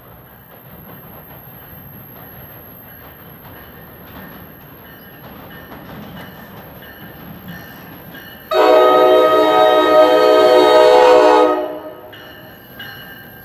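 An NJ Transit train approaching on the rails, its rumble slowly growing louder, then one long, loud blast of about three seconds on its air horn, starting a little past halfway through.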